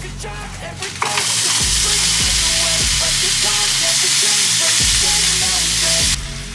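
Raw rice with diced tomato and onion frying in oil in a skillet, sizzling steadily as it is stirred with a spatula. The sizzle starts abruptly about a second in and cuts off suddenly near the end, over background music with a beat.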